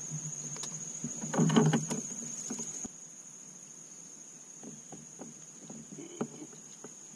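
Insects trilling in a steady, high-pitched drone, with a short louder noise about a second and a half in and a few light knocks near the end.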